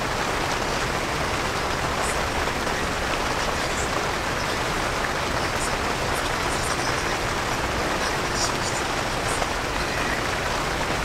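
Steady rain falling on a tent, heard from inside: an even hiss with a few faint ticks of drops.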